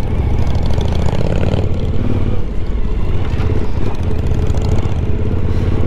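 Suzuki V-Strom adventure motorcycle being ridden over a rough dirt road, its engine running steadily under load, mixed with road and wind noise.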